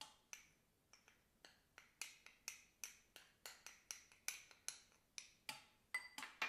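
Spoon clinking faintly against a small glass bowl, about three light clicks a second, while stirring cornstarch into cold water to make a slurry.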